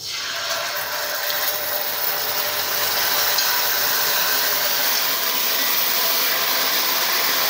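Red sauce sizzling as it is poured into hot melted butter and chopped garlic in a wok: a steady frying hiss that builds over the first couple of seconds and then holds.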